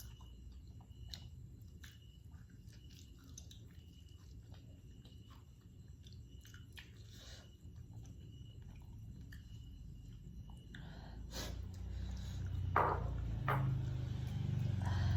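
Close-up eating sounds: a person chewing food, with small wet mouth clicks and smacks. Near the end a louder low rumble comes in.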